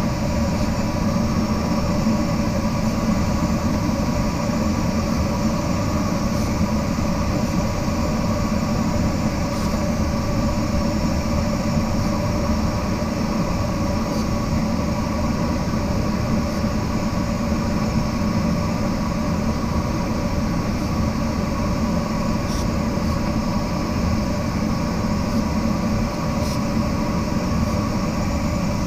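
Steady rush of air past a glider in flight, heard from inside the cockpit, with a few faint steady tones over it.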